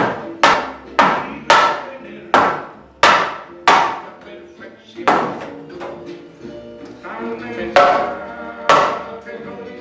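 Hammer blows: a quick run of about seven strikes roughly every half second, then three more spaced out near the end, each ringing briefly, over background music.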